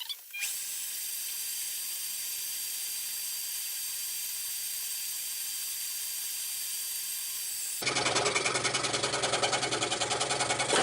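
Hegner scroll saw running and cutting through stacked thin wood layers with a fine Olson blade, a steady high-pitched whir. About eight seconds in it turns abruptly louder, with a fast rhythmic pulsing over a low hum, then stops suddenly at the end.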